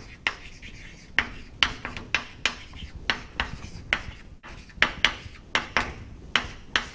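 Chalk writing on a chalkboard: a quick, uneven run of short taps and scrapes as letters are written.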